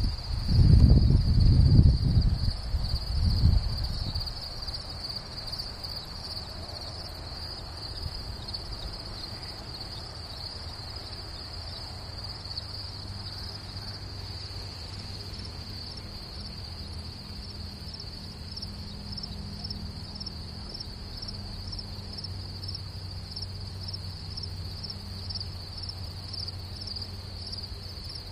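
A chorus of crickets chirping in dry grass, a steady high-pitched pulsing trill. Heavy low rumbling on the microphone in the first few seconds.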